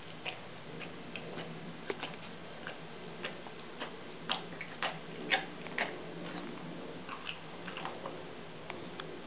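Dog eating from a stainless steel bowl: irregular sharp clicks and smacks of its mouth working the food, some louder near the middle, over a steady low hum. The owner thinks the odd way she eats comes from pain in her throat, tongue or jaw.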